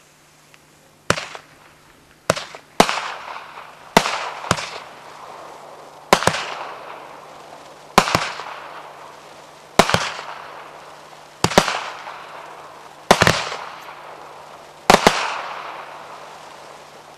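A 'Golden Rain' consumer firework battery firing its gold comet shots: about a dozen sharp bangs every one to two seconds, some in quick pairs, each trailing off in a fading hiss. The loudest shots come near the end.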